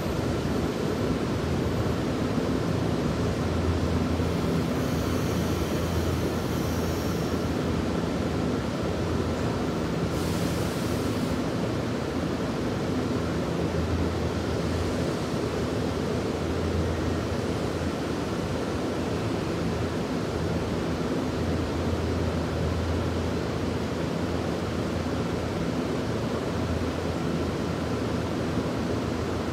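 Steady low rumble and hiss of railway station background noise while an electric train pulls away into the distance. Faint high-pitched squeals come about five to seven seconds in, and a short hiss about ten seconds in.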